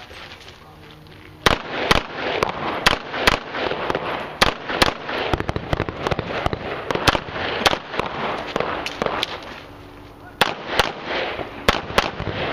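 A string of pistol shots fired in quick succession during a practical-shooting stage, each crack followed by a short echo, about two to three shots a second. The shots begin about a second and a half in, ease for a moment about ten seconds in, then come quickly again.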